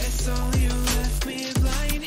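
Electronic background music with a beat of deep kick drums under held bass notes and a synth melody.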